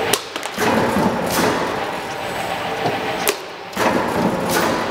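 Eccentric shear with a steel-rule blade cutting rubber sheet: sharp knocks in a cycle that repeats about every three seconds, over steady machine noise.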